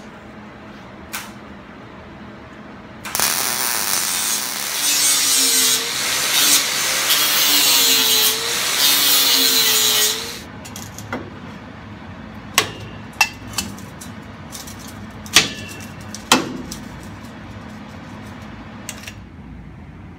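Angle grinder working steel tubing for about seven seconds, its pitch dipping and recovering as the disc bites, then stopping; a few sharp metallic knocks follow.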